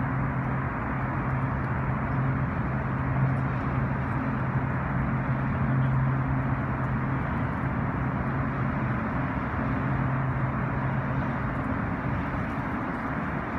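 Motor yacht's engines droning steadily as it cruises past at speed, a low even hum over a constant rushing noise. The hum fades out about twelve seconds in.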